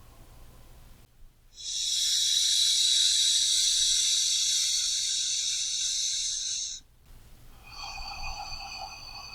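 A person's slow deep breathing: a long, loud, hissy breath out through the mouth lasting about five seconds, then a quieter breath in through the nose starting near the end. This is the paced inhale-through-the-nose, exhale-through-the-mouth breathing of a relaxation exercise.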